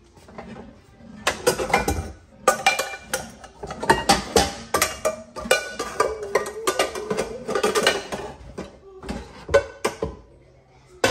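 Pots, pans and utensils clattering and clinking while a meal is cooked, with background music underneath.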